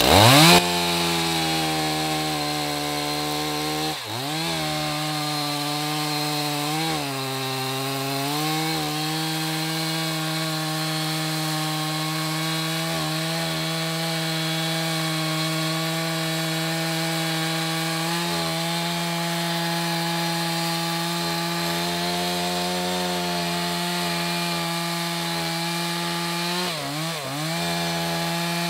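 Two-stroke chainsaw cutting through an ash log. The engine note drops sharply as the chain goes into the wood, then holds steady under load, with a few brief dips. The freshly sharpened chain is slow to bite and drag in, which the operator puts down to the rakers needing filing.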